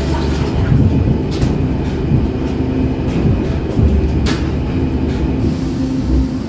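Stockholm metro C14 (Cx) carriage braking, heard from inside: a steady low running rumble with the brakes squealing. Near the end comes a loud hiss of compressed air blowing out.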